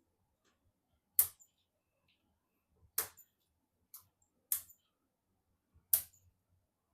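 Five sharp clicks at uneven intervals, with near silence between them, from PC parts being handled and fitted during assembly. The first and last clicks are the loudest.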